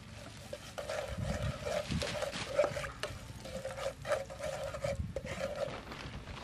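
A spatula stirring and scraping chopped aromatics frying in a non-stick frying pan: repeated scrapes and light knocks against the pan over a sizzle of hot oil.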